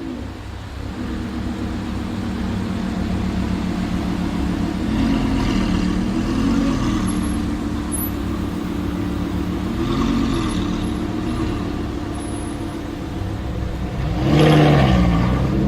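Sports car engine idling steadily, with a few light throttle blips and a sharper rev near the end.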